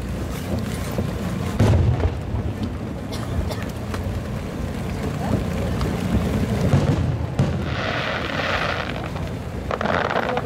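Aerial firework shells bursting at a display: a loud, low boom about two seconds in, then two spells of hissing, crackling noise near the end.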